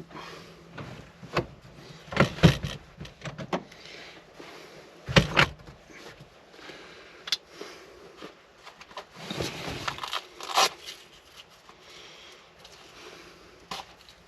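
Irregular knocks, clicks and rustling as a seat cover is worked onto a Jeep Wrangler seat, with a few sharper knocks standing out.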